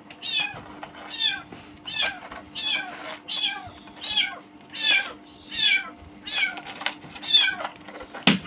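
Newborn kitten mewing over and over, about a dozen short, high-pitched mews with falling pitch. A sharp click comes near the end.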